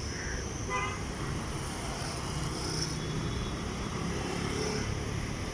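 Road traffic: a steady wash of cars and motorcycles running past, with a brief high pitched note about a second in.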